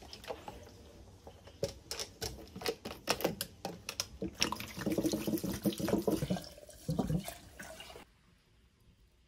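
Shochu poured from a large plastic bottle into a glass jar, gurgling and splashing in quick irregular pops. The pouring stops suddenly about eight seconds in.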